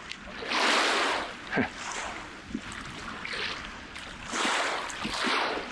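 Small waves washing up on the beach in repeated swells of surf noise, the strongest about half a second in and again around four to five seconds.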